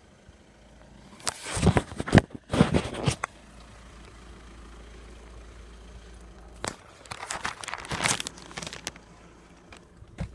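Handling noise from a tablet being put away while it is still recording: rustling, scraping and knocking against the device and microphone. The noise comes in two loud clusters, from about a second in and again around seven seconds, with quieter steady noise between.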